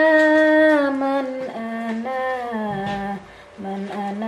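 A woman singing a slow melody unaccompanied, holding long notes and sliding between pitches, with a brief pause about three seconds in.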